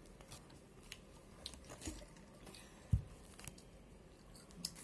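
Faint eating sounds: soft chewing and small clicks at the table, with one dull thump about three seconds in.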